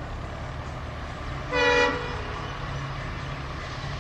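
An EMD diesel locomotive gives one short toot on its horn about one and a half seconds in, over the steady low rumble of the approaching train.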